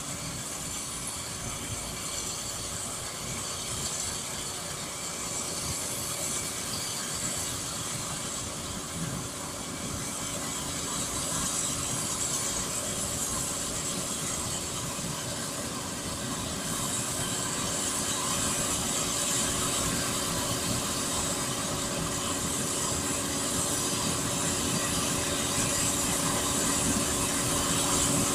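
SK-5 Niva combine harvester with a straw chopper working in standing grain: its engine and threshing machinery run steadily with a strong hiss. It grows louder as the combine draws closer.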